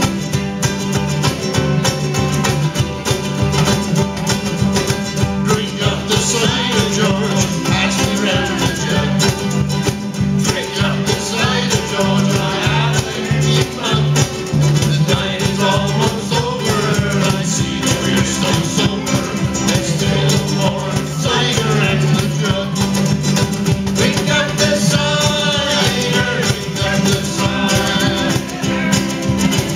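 Ukulele band playing live: several strummed ukuleles in a bouncy rhythm, with group singing coming in about six seconds in.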